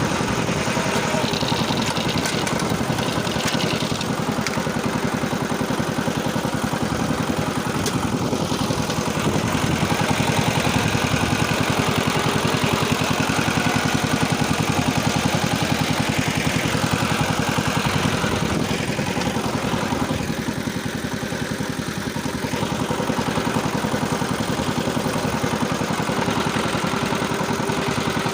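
Engine of a machine driving a rotary tiller through soil, running steadily under load; it eases off slightly about two-thirds of the way through, then picks up again.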